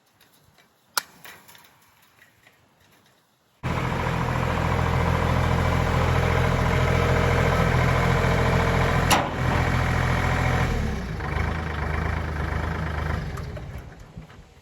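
An engine running steadily, cutting in suddenly about three and a half seconds in, with one sharp knock about nine seconds in, then fading away near the end. A few faint clicks before it starts.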